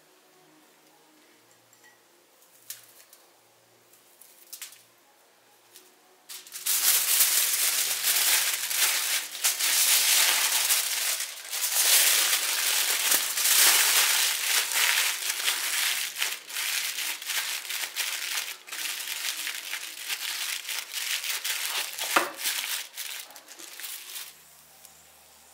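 Aluminium foil crinkling and crumpling as it is folded and pressed tightly around a large bone-in steak. A few faint taps come first, then about six seconds in the crinkling starts and runs on, loud and dense, until near the end.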